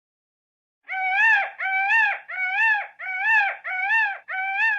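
Peacock calling: six loud cries in quick succession, each rising a little and then falling, starting about a second in.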